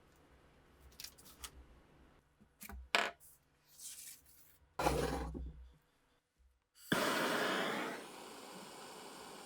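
Small metal pistol parts clicking and scraping as they are handled, then a sudden loud hiss about seven seconds in that settles into a steady, quieter hiss.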